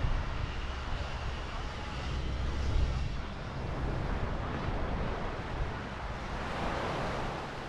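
Sea surf washing up onto a sand beach, one wave swelling up near the end, with low wind rumble on the microphone in the first half.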